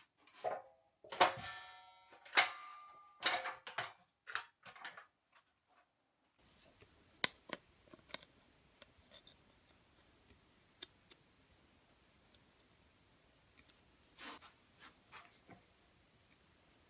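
A wooden block knocked and pressed into a workbench's clamping jaws: several sharp knocks, some with a short ring, over the first five seconds. After that, faint scattered clicks from handling metal dividers and a ruler.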